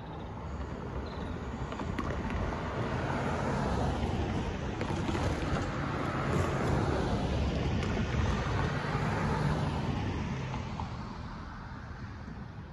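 An SUV drives past over the crossing: its engine and tyre noise swell over a few seconds, hold, and then fade away.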